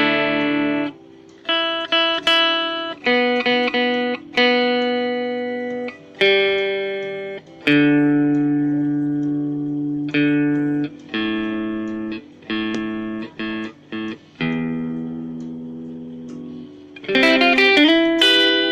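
Mavis MST-600 electric guitar played on a clean tone: picked notes and small chords, each left to ring and fade away, with a quicker run of notes near the end.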